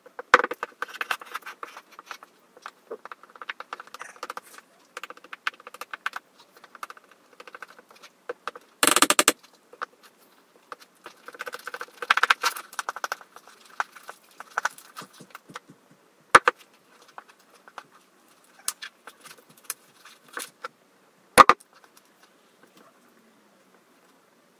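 A spoon scraping and tapping in a plastic mixing bowl and a hand working flour and eggs into a stiff dough: a steady run of small clicks and scrapes, with a short dense rustle about nine seconds in and two sharper knocks near the end.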